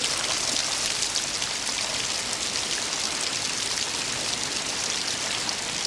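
Steady, heavy rain: a dense hiss of drops pattering without let-up.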